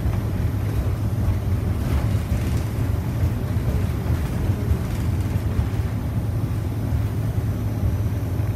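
City bus heard from inside the passenger cabin: a steady low drone from the bus's engine and running gear.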